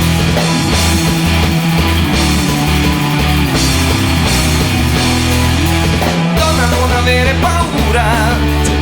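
Background rock music with a steady, loud mix of bass, guitars and drums.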